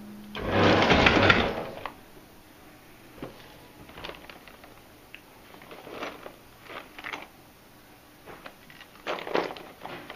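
SA-88 tabletop banding machine feeding out its band loop in a loud rush of about a second and a half, starting about half a second in. Then light scattered clicks and crackles of a clear plastic snail tray being handled against the machine, with a louder cluster near the end.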